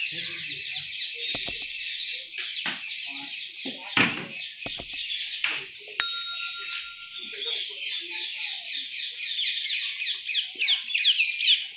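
Dense chorus of many small birds chirping and chattering, with a louder call repeated in quick downward sweeps near the end. A few handling knocks and a sharp click about six seconds in.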